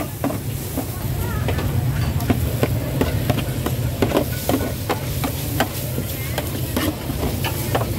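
Metal spatula clanking and scraping against a wok as food is stir-fried, several irregular strikes a second over sizzling and a steady low rumble.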